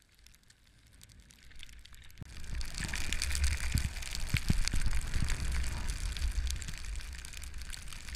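Skis sliding over snow with wind buffeting the camera microphone: a steady hiss and low rumble that rises about two seconds in, with scattered sharp scrapes and clicks.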